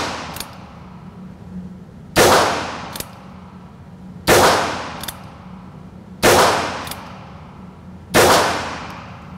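Ruger Wrangler .22 LR single-action revolver firing four sharp shots, evenly spaced about two seconds apart, in an indoor range. Each report dies away over about a second and is followed by a fainter sharp click.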